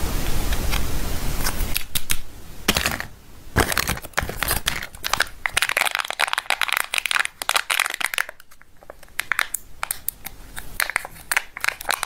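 A steady hiss for about the first two seconds cuts off. Then the thin printed foil wrapper of a Kinder Surprise chocolate egg is handled and peeled back by fingers, giving irregular crinkles and small sharp crackles, densest a few seconds past the middle.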